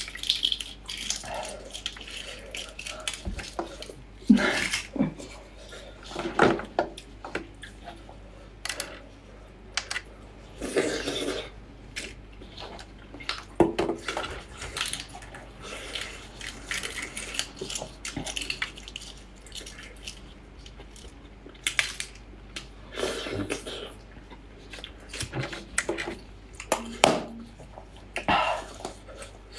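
Shell of a sauce-soaked braised egg crackling and peeling under plastic-gloved fingers, with wet sticky handling sounds, in irregular bursts every second or two.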